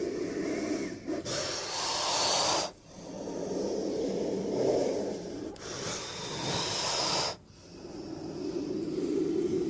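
Designed creature sound effects for a giant prehistoric snake: a series of long, breathy hisses, each one to three seconds long, with short breaks between them.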